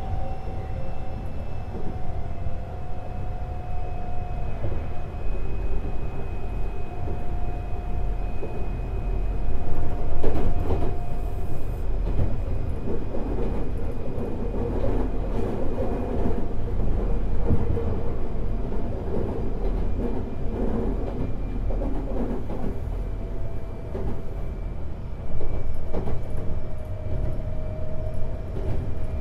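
Semboku 7020 series electric train running, heard from above the bogie of a motor car. A traction-motor whine from its Hitachi two-level IGBT VVVF drive sits over steady wheel-and-rail rumble and clatter at rail joints. The whine slowly falls in pitch over the first ten seconds, there is a louder burst of rattling about ten seconds in, and a whine rises slightly near the end.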